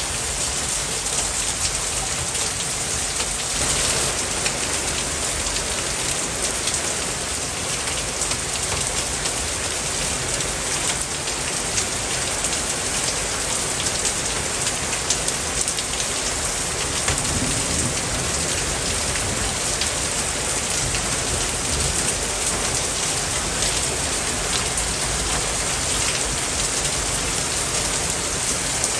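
Steady noise like heavy rain: an even hiss with fine patter and no tune.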